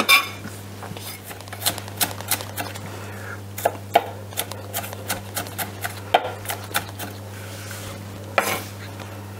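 Chef's knife chopping diced onion on an end-grain wooden cutting board: a run of uneven knocks of the blade on the wood, about two to three a second, over a steady low hum.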